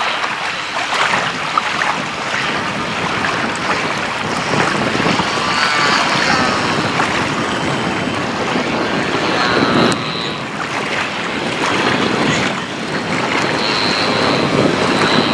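Gusty wind buffeting the microphone, with a thin, high whine from the Carbon-Z Cub's electric motor and propeller coming in over the last few seconds as the model floatplane flies nearer.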